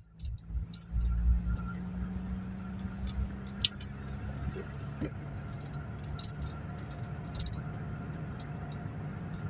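Ford Fiesta Mk2 XR2's carburetted four-cylinder engine running steadily under way, heard from inside the cabin, its note dropping a little a few seconds in. Light clicks and rattles sound over it, the sharpest a little under four seconds in.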